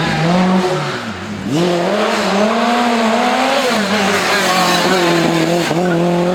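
Lancia 037 rally car's supercharged four-cylinder engine under hard throttle. Its pitch dips about a second in, climbs sharply and holds high, then drops back near the four-second mark and runs steady.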